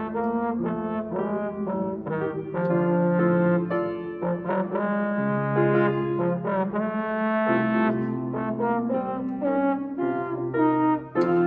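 Slide trombone playing a melody of short and longer held notes over grand piano accompaniment.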